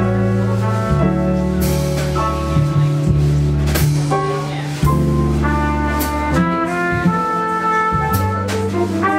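Live jazz quartet playing: a trumpet plays a held melodic line over plucked double bass, with keyboard and drums, several cymbal strokes cutting through.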